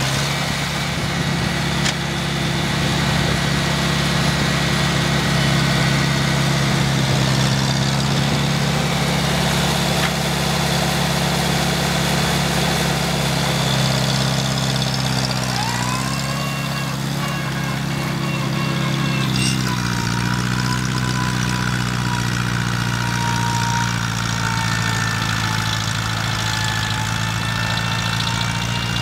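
Farmall Cub tractor's small four-cylinder engine running steadily while plowing, its pitch dipping briefly twice past the middle.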